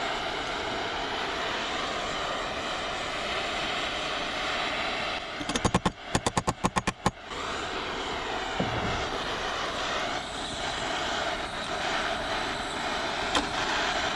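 Hand-held propane torch flame running steadily, heating rusted bolts to loosen them. A little past five seconds in, a quick rattle of about ten sharp clicks cuts across it.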